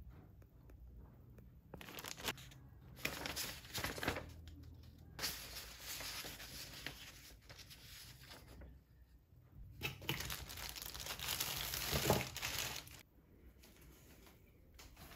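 Packaging being handled: a plastic bag of screws crinkling, then paper instruction sheets and a cardboard box rustling, in several irregular bursts with short pauses between.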